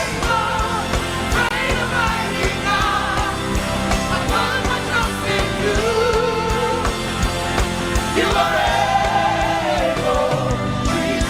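Live gospel worship music: a lead voice singing a wavering, drawn-out melody over a band with a steady drum beat.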